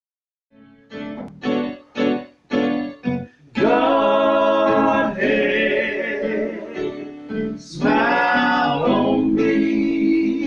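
Men's voices singing a slow gospel song together in harmony. A few short notes come in about a second in, then long held notes from about three and a half seconds.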